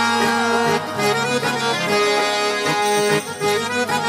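Background music: the instrumental passage of a romantic Hindi–Punjabi song, sustained melodic instrument lines over held chords, with no singing.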